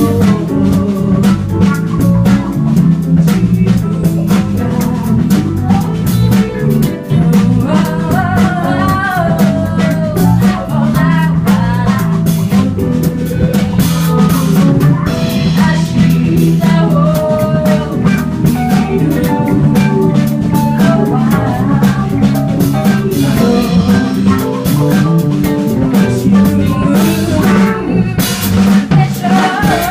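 A live band playing: a drum kit keeps a steady beat under bass and guitar, with a melody line wandering over the top.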